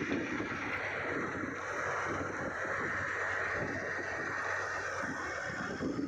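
Wind buffeting the microphone, a steady rushing noise with a fluttering low rumble.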